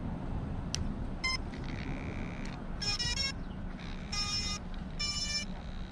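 Brushless ESCs playing their power-up beeps through the 2212 outrunner hub motors as the 3S LiPo is plugged in: a few short electronic tones, ending in three beeps in the second half. A steady low background rumble runs under them.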